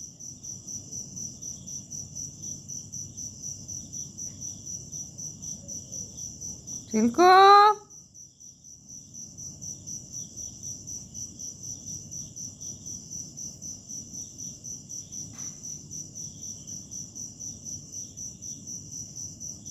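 Crickets chirping: a steady, fast-pulsing high trill that carries on without a break.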